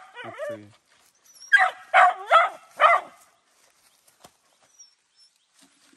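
A dog barking: a quick run of about four high barks starting about a second and a half in.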